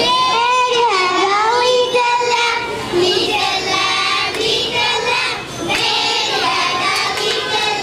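Young children singing together, holding long notes that glide up and down.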